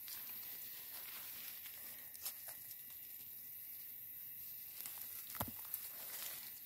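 Leaves and twigs of a green plum tree rustling as the fruit is picked by hand, with a low steady hiss and a few short clicks and rustles, the clearest about two seconds in and again a little after five seconds.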